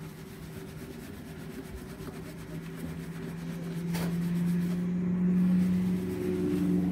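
Hands scrubbing and rubbing shampoo lather through wet curly hair. A steady low hum swells in about halfway through and becomes the loudest sound, and there is a single click about four seconds in.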